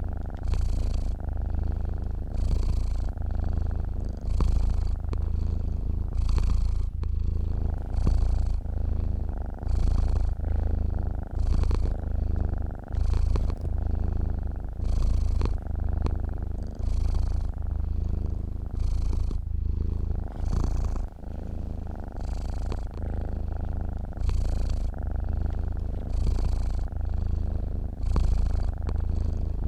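A sleeping domestic cat purring steadily, the purr swelling and easing in a slow, even rhythm about every two seconds.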